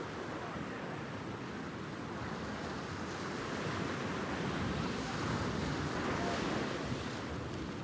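Wind buffeting the microphone over the wash of the sea around a boat, growing louder a few seconds in and easing near the end.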